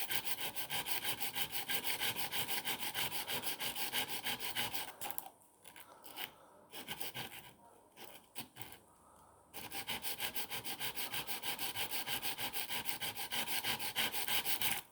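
Stainless steel broadhead blade being stroked on 240-grit wet and dry sandpaper: a rapid, even rhythm of abrasive scrapes. The strokes break off about five seconds in, leaving a few light scrapes, then resume at the same pace about four seconds later.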